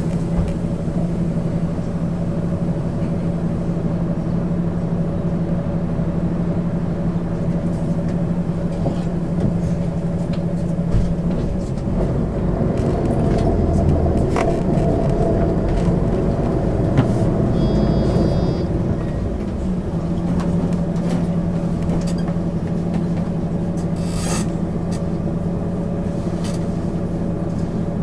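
MAN ÜL 353 intercity bus heard from inside while under way: the engine drones at a steady pitch, then turns to a rougher, heavier rumble for several seconds near the middle as the load changes, before settling back to the steady drone. A short high electronic beep sounds about two-thirds of the way through.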